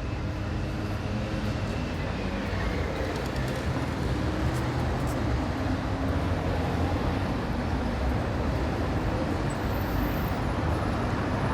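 Steady street traffic: cars and scooters running past in a continuous rumble of engines and tyres.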